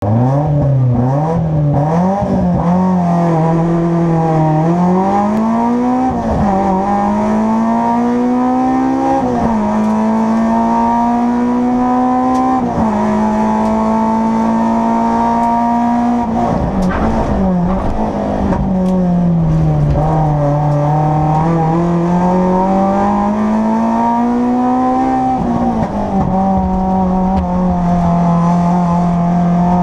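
Race car engine, heard on board, pulling away from the start line and accelerating hard, its revs climbing and dropping sharply at each of several upshifts. Midway the revs fall off under braking and downshifting for a bend, then climb again through another gear change.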